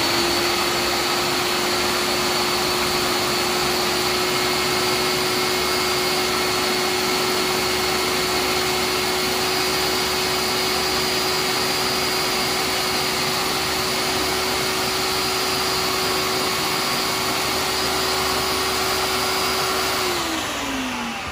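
Ninja food processor motor running steadily with a constant whine, puréeing a chimichurri of herbs, garlic and onion. Near the end it switches off and the whine falls away as the motor winds down.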